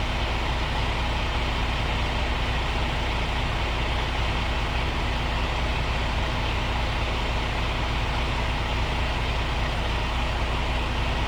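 Truck diesel engine running steadily with an even low rumble and a constant hum.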